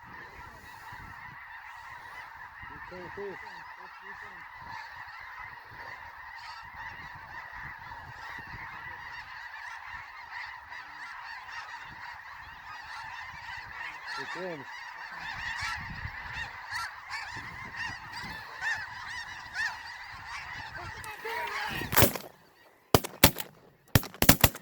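A large flock of snow geese calling all at once: a dense, continuous chorus of high honks. The chorus cuts off suddenly about 22 seconds in, followed by several sharp cracks.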